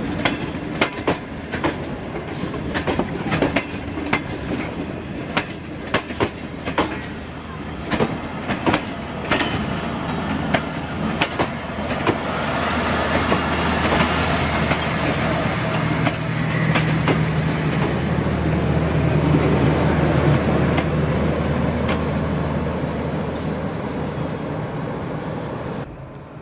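Express passenger coaches rolling past at speed, the wheels clacking sharply over rail joints. About halfway the clacks merge into a louder, steadier rumble with a low drone, and a thin high squeal comes and goes in the second half.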